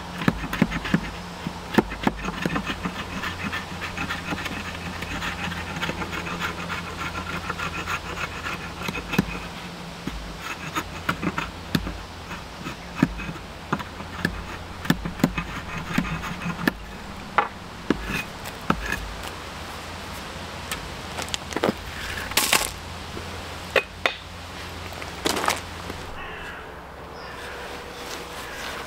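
Small axe knocking and splitting thin sticks of wood on a wooden block: irregular sharp knocks and cracks throughout, two of the loudest about two-thirds of the way in. A buzz runs under the knocks for the first third.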